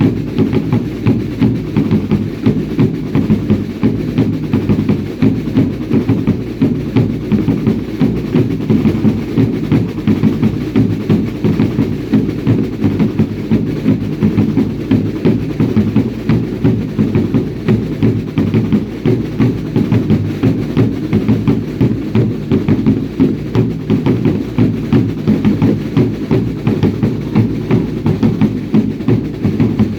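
Drums of a baile indio dance troupe beating a steady, driving rhythm, about two beats a second.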